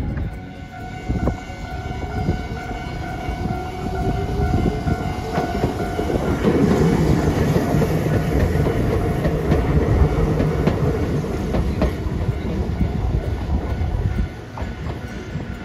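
Hiroden 3800-series Green Liner articulated tram running past at low speed: motor and wheel rumble with wheels clicking over rail joints, loudest in the middle as the car passes. A steady whine is heard in the first half.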